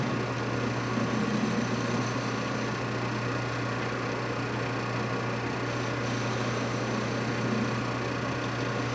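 Machine tool running steadily while it takes a light cut on a metal spacer, a constant low hum with no breaks.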